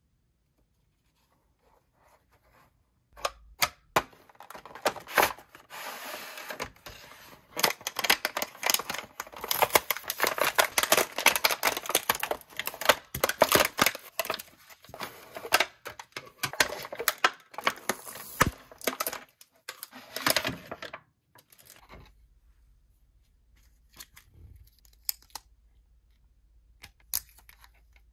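Toy packaging being torn open: a cardboard blister-pack backing card ripping and a clear plastic bag crinkling, a dense run of tearing and crackling that starts a few seconds in and stops about two-thirds of the way through. A few faint clicks follow near the end.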